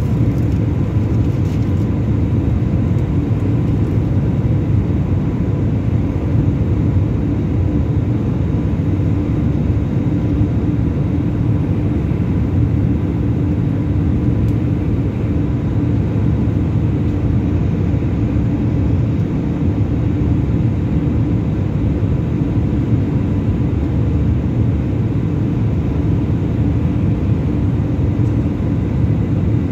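Airliner's turbofan engines heard from inside the passenger cabin in flight: a steady, even low rumble with a faint constant hum.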